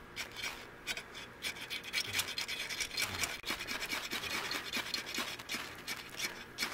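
A steel striker scraped again and again along a small ferrocerium (ferro) rod in quick, sharp strokes, throwing sparks to light a pile of fat-wood shavings.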